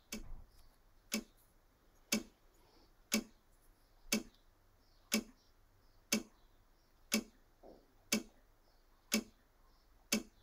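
Steady ticking, like a clock: short sharp ticks evenly spaced about one a second, with near silence between them.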